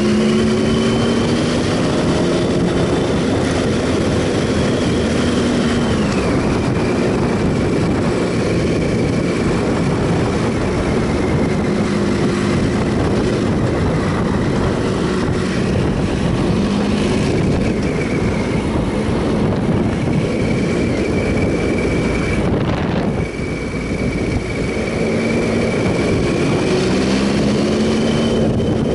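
2007 Triumph Sprint ST 1050's three-cylinder engine under way, its pitch climbing and then dropping sharply about six seconds in, holding steady, and climbing again near the end as the rider works the throttle and gears. A heavy, steady rush of wind and road noise runs under it.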